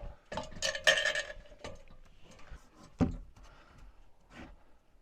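Roofing paper being handled and stapled down on a roof deck: a short clatter of rustling and small knocks with a faint metallic ring, then a single sharp knock about three seconds in and a softer one a little later.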